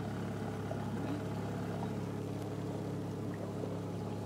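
Small outboard motor running at a steady speed, driving a small open boat along a river.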